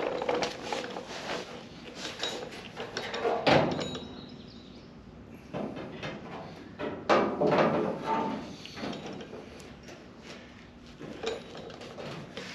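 Loose sheet-metal Firebird tail panel being worked into place against the body for a trial fit. Irregular metallic clunks and scraping, with the sharpest knock about three and a half seconds in and a busier stretch of scraping and knocking a few seconds later.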